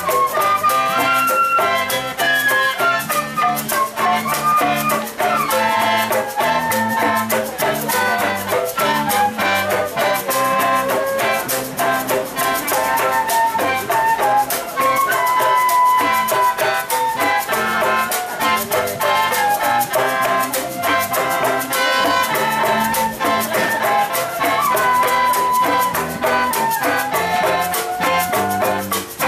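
Traditional Sabah bamboo ensemble playing: a bamboo mouth organ, a bundle of pipes blown through a side mouthpiece, carries a melody over steady percussion from handheld bamboo tubes and a row of upright bamboo tubes struck with a beater.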